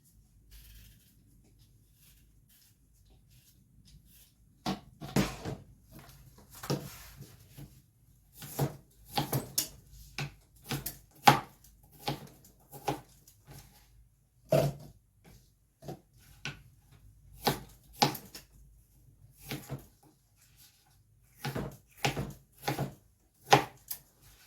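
Knife cutting pear on a cutting board: irregular sharp knocks, one or two a second, starting about five seconds in.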